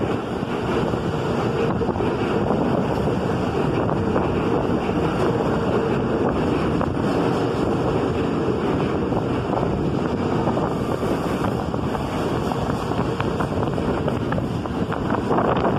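New York City Subway F train pulling into the station, its cars rolling past with a steady rumble of wheels on the rails.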